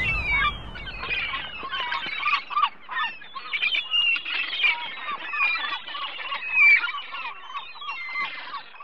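A flock of birds calling: many short, chirping and squawking calls overlapping densely, growing fainter near the end.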